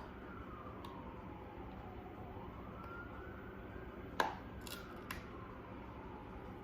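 A faint siren wailing slowly down and up, twice over, with a few sharp clicks; the loudest click comes about four seconds in.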